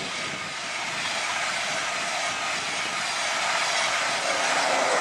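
InterCity 225 electric express train passing close by at speed: a steady rush of wheel and air noise that grows louder.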